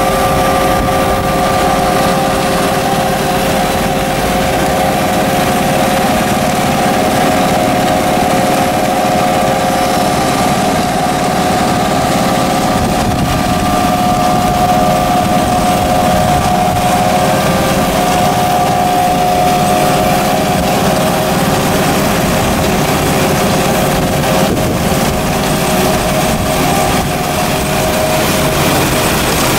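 CEC 6x16 wash plant running: a steady mechanical hum and whine from its electric-driven vibrating screen and conveyor belts, over a steady rushing noise.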